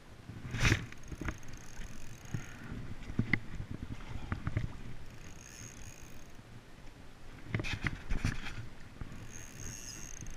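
Handling noise from hands and a sleeve rubbing and knocking against the camera as the angler handles his rod and fixed-spool reel. Loud knocks come about a second in and again around eight seconds, with softer rustling between.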